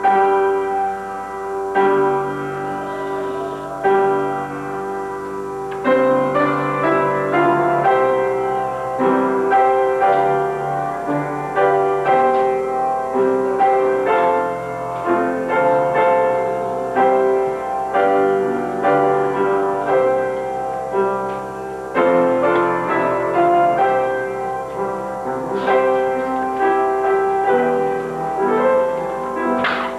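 Piano playing a slow piece of held chords and melody notes, changing every second or two.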